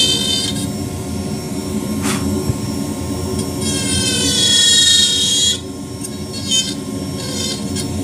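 Marathon micro carver spinning a fine Kutzall taper burr, grinding undercuts into thin cottonwood bark. A steady motor hum runs under a high whine that swells as the burr bites into the wood, loudest about four to five seconds in, then drops off suddenly at about five and a half seconds.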